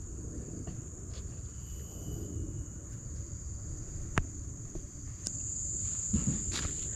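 Insects calling in one steady high-pitched drone that grows louder about five seconds in, over a low rumble, with a single sharp click about four seconds in.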